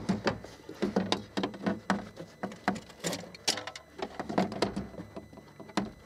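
Irregular clicks, knocks and rattles as a BMW E38's rear power window regulator, a metal rail with its cable, is worked out through the inner door panel opening.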